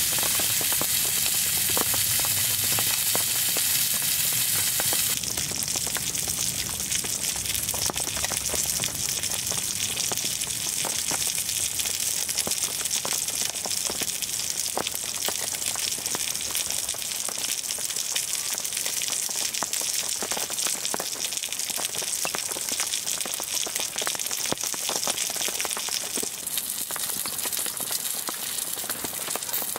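Food sizzling in a cast iron skillet on a wood stove: a steady frying hiss with scattered small pops. The hiss is strongest in the first five seconds and eases a little after.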